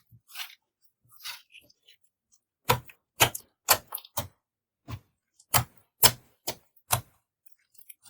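Clear slime being squeezed and poked by hand, giving a few soft crackles and then a run of about ten sharp clicks and pops, roughly two a second, from a little before halfway to near the end.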